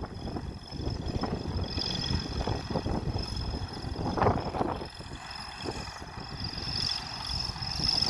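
Diesel engines of heavy road-construction machines running, a low irregular rumble with wind buffeting the microphone. A thin steady high whine sits above it.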